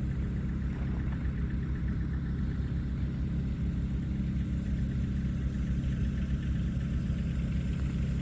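Vehicle engine running steadily, a low, even hum with no change in speed.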